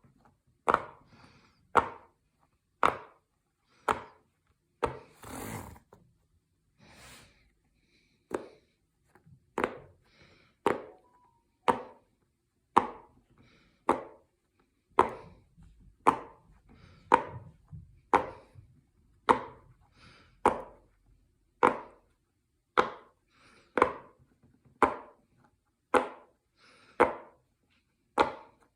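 Silicone pop-it fidget toy bubbles being pressed and popping one at a time, a sharp pop about once a second. There is a short break with a soft rustle about five to seven seconds in.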